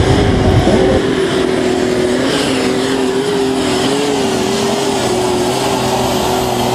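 Engine of a tractor-pulling vehicle running hard at steady high revs, its pitch wavering slightly. A deep rumble underneath drops away about a second in.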